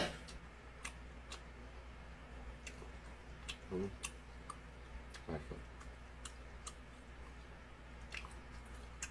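Quiet eating sounds of a person chewing ramyeon noodles: scattered small clicks and mouth smacks, with two short low murmurs, the first a little under 4 seconds in and the second a bit after 5 seconds, over a faint steady low hum.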